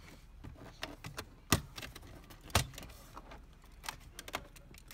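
Plastic interior trim clips snapping loose as the shift-surround trim bezel of a Chevy Cruze is pried up by hand and with a plastic panel tool. There are two sharp snaps about a second apart near the middle, with lighter plastic ticks and rattles between them.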